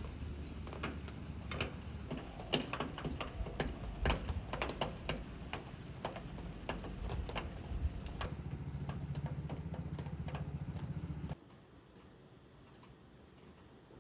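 Irregular light clicks and taps over a low steady hum for about eight seconds; the clicks stop, the hum runs on, then the sound cuts to a much quieter background about eleven seconds in.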